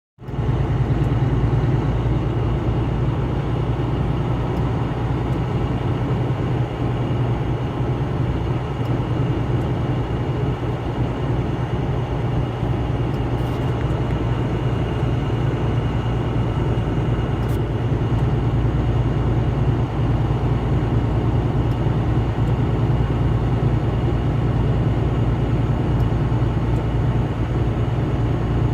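Steady rumble of a vehicle driving at highway speed, with road and engine noise heavy in the low end and a faint steady high whine.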